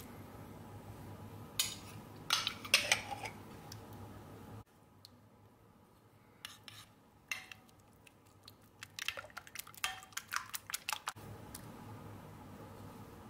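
Metal spoon clinking and scraping against a ceramic bowl while sour cream is spooned into beaten egg and stirred. A cluster of clinks comes about two seconds in, and a quicker run of taps follows around ten seconds in.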